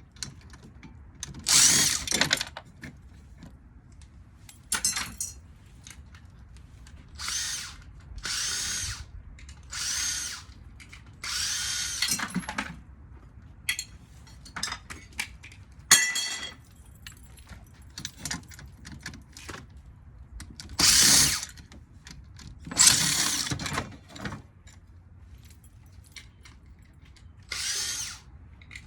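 Power drill run in about ten short bursts, each lasting around a second with pauses between, while a ceiling fan motor is being taken apart.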